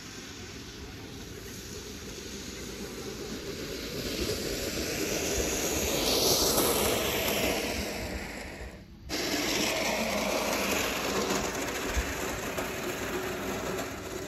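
Plastic grass sled sliding down an artificial-turf slope, a rushing scrape that builds over the first six seconds or so. It breaks off for a moment about nine seconds in, then goes on at a lower, steady level.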